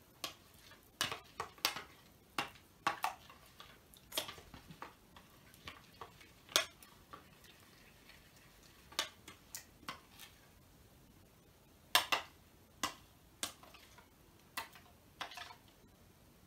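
Metal spoon stirring slime in a plastic bowl, knocking and scraping against the bowl in irregular clicks and taps. The slime is thickening as contact lens solution is mixed in.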